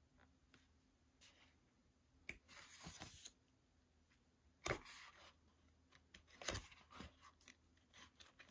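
Photobook pages being turned by hand: quiet paper rustles and swishes, with a sharp tap about halfway through and a cluster of small clicks and rustles near the end.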